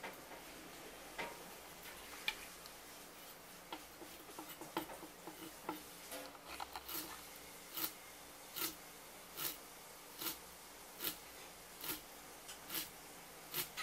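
A kitchen knife cutting a pike conger fillet on a wooden cutting board, chopping across the fillet in the bone-cutting (honekiri) way that severs the eel's small bones. Scattered light knife clicks at first, then from about halfway a steady rhythm of crisp cuts, a little over one a second.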